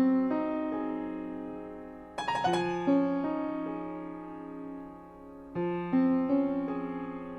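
Background piano music: gentle chords and rippling notes that ring and fade, with a new phrase beginning every few seconds.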